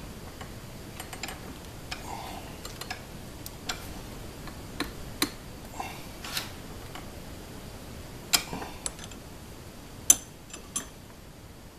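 Irregular light clicks and taps, a dozen or so with the sharpest about 8 and 10 seconds in, from hands working a front sight into a 1911 slide held in a leather-padded vise, with a few brief scrapes between.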